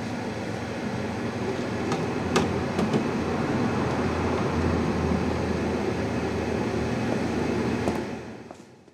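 A steady, dense rumble with a few sharp clicks about two to three seconds in. It grows slightly louder, then fades out about eight seconds in.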